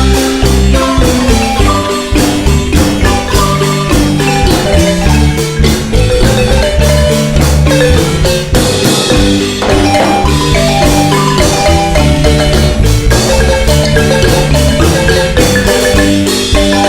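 Marimba ensemble playing a dance tune: quick, rhythmic mallet notes over a steady bass line.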